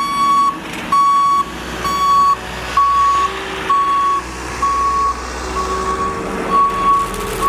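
Backup alarm of a reversing snow-clearing vehicle, beeping steadily at about one beep a second over the low rumble of its engine.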